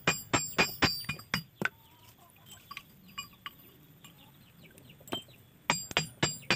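Hammer blows, about four a second, on a steel punch held against red-hot steel on a stone anvil, each blow with a short metallic ring. The hammering pauses after about a second and a half and starts again near the end.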